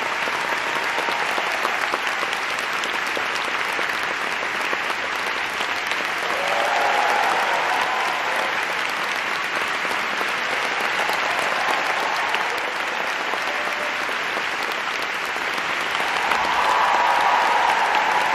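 A concert hall audience applauding an orchestra with sustained, dense clapping. The applause swells about seven seconds in and again near the end.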